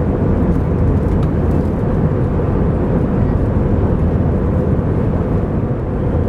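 Steady low drone of cabin noise inside an Airbus A321 airliner, the sound of its engines and air conditioning, with a faint steady hum above it.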